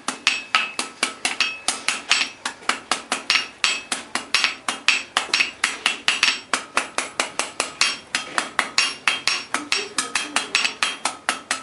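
Blacksmith's hammer striking hot iron on an anvil in a steady run of quick blows, about four a second, each with a bright metallic ring. The smith is curling the end of the bar into a decorative scroll.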